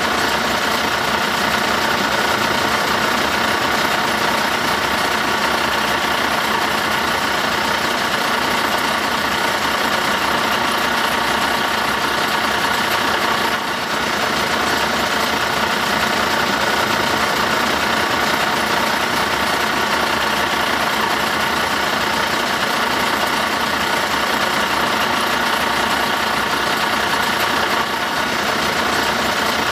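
Steady, even truck engine idling sound effect, with no revving.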